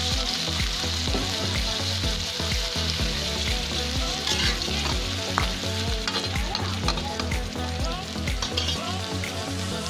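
Squash chunks sizzling in hot oil in an aluminium wok, the hiss strongest in the first second or two as liquid is poured into the pan. A metal spatula stirs through the pieces, with scattered clicks and scrapes against the pan.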